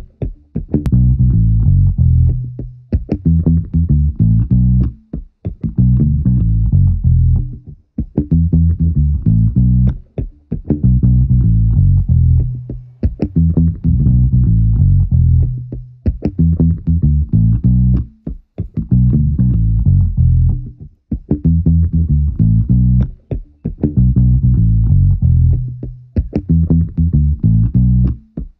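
Background music: an instrumental track led by bass guitar, playing a repeating riff that pauses briefly about every two and a half seconds.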